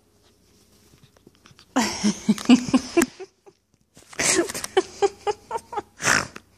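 Close rustling and scraping of a Pomeranian puppy's fur against the phone's microphone, in two loud bouts with scattered clicks and a few short squeaks mixed into the second.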